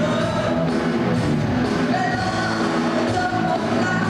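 Live rock band playing loudly, with electric guitar, drums and a singing voice.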